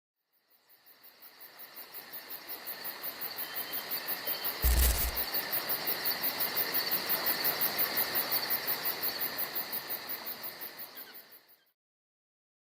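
Insects chirring in an even pulse of about five beats a second, fading in and then fading out, with one short low thump about five seconds in.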